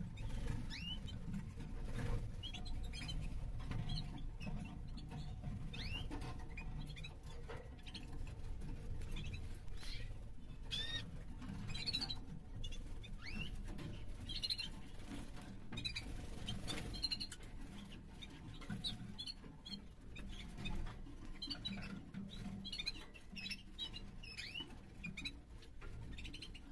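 Caged white opal agate canaries giving short, high chirps and twitters, scattered all through, over a steady low rumble.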